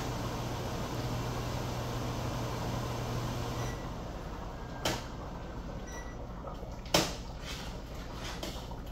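Kitchenware knocking twice, sharp and short, over a steady kitchen hum whose low drone drops away about four seconds in.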